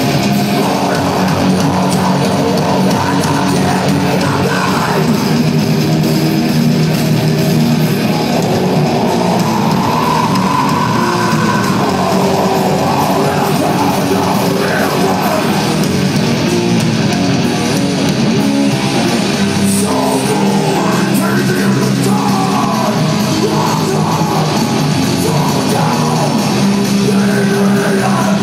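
A heavy metal band playing live, heard loud and steady from the crowd: distorted electric guitar, bass and drums.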